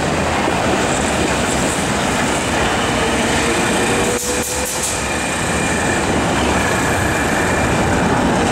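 Articulated tram rolling past close by on street track: a steady rumble of steel wheels on the rails, with a quick run of clacks about four to five seconds in and a faint thin whine over the top.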